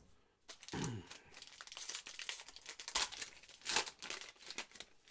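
Foil wrapper of a Panini Mosaic football card pack being crinkled and torn open by hand, with a couple of sharper rips about three seconds in.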